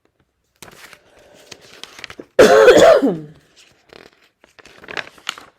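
A person clearing her throat with a cough, once, under a second long, about two and a half seconds in. Faint clicks and rustles come before and after it.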